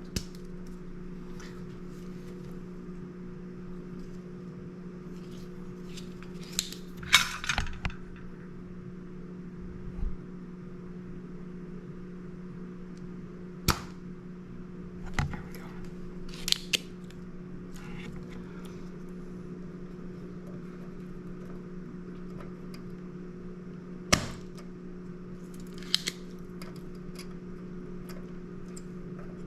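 Spring-loaded solder sucker (desoldering pump) snapping and clicking as it is cocked and fired, a handful of sharp clicks several seconds apart over a steady low hum.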